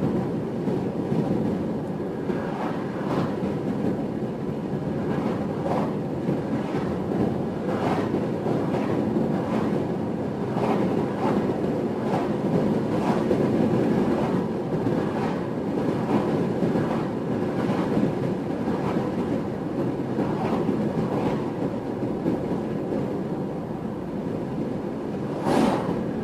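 Road noise inside a moving car: a steady rumble of tyres and engine, with short knocks or rattles every second or two. Near the end an oncoming car whooshes past.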